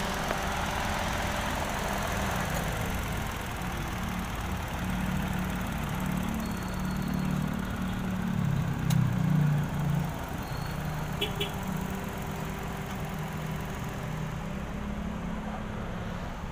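Mitsubishi Mirage G4's three-cylinder engine idling steadily, heard under the open hood.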